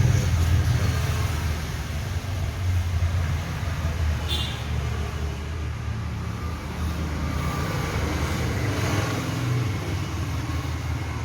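Steady low rumble of a motor or engine running in the background, with one short click about four seconds in.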